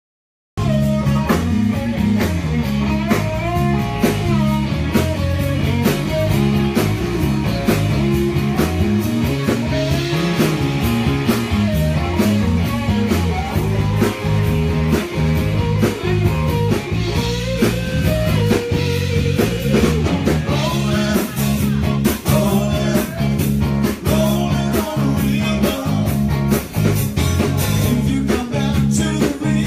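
Live rock band playing loud, with drum kit and electric guitar; the music cuts in abruptly about half a second in.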